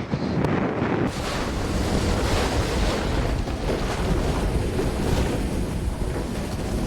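Strong storm wind blowing and buffeting the microphone in a rumbling, steady roar, with an abrupt change in the sound about a second in.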